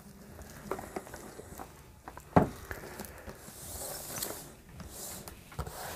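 Handling noise from a shrink-wrapped cardboard box being turned over by hand: light taps and rubbing, with one sharp knock a little over two seconds in and a rustling hiss of the plastic wrap around four seconds in.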